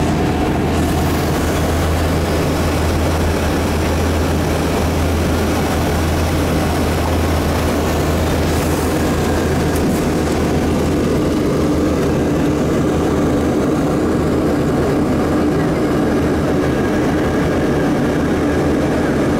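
Steady, loud cabin noise of a Yakovlev Yak-42D airliner in flight, a constant rush of engine and airflow noise with a low drone from its three rear-mounted turbofans. The low drone softens about halfway through while a steady higher hum comes up.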